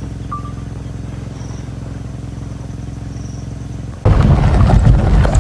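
A vehicle engine idling with a steady low hum. About four seconds in it cuts abruptly to much louder music.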